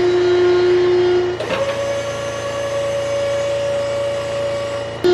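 Small electric motor of a DIY miniature concrete mixer model whining steadily. Its pitch jumps higher about a second and a half in, then holds.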